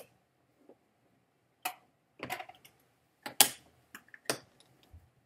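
Hard-shell trombone case being closed, its metal latches snapped shut one after another: a string of sharp clicks and snaps, the loudest about three and a half seconds in.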